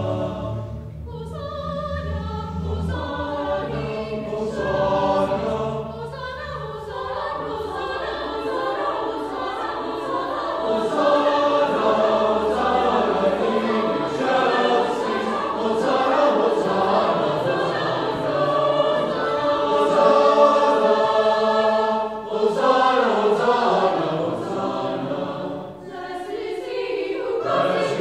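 A choir singing, with short breaks between phrases.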